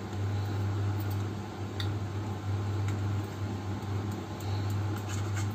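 Steady low mechanical hum, like a running fan, with a few faint clicks of a knife touching a steel plate while cutting soft barfi.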